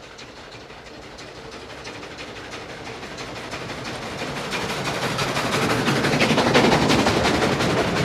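Steam-hauled passenger train approaching and passing close by, with a rapid clatter of wheels on the track. The sound builds steadily to its loudest about six and a half seconds in.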